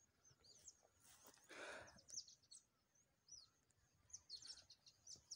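Near silence outdoors: faint bird chirps scattered throughout, with one brief soft rustle of noise between one and two seconds in.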